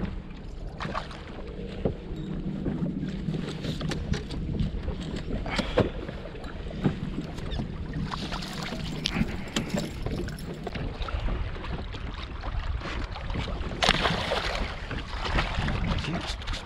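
Small plastic boat on the water with wind on the microphone, frequent knocks and bumps against the hull, and water splashing at the boat's side, loudest about eight seconds in and again near the end. A low steady hum runs for the first five seconds.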